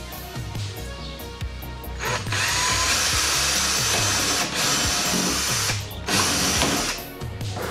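Cordless drill running at high speed against a fibreglass body panel in three runs: a long one of about two seconds starting two seconds in, then two shorter ones. A steady music beat plays underneath.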